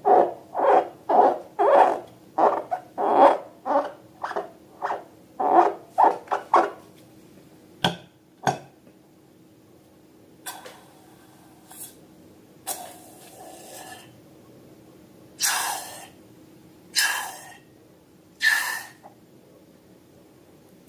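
Rubber balloon squeaking in quick repeated bursts, about two or three a second, for the first seven seconds. Then come two sharp clicks and several short hissing bursts of air.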